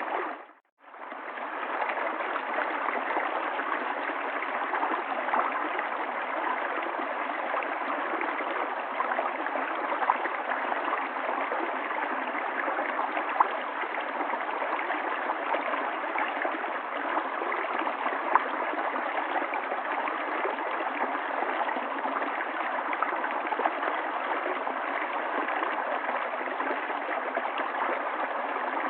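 River water flowing and gurgling in a steady rush. Just after the start it drops out to silence for under a second, then fades back in.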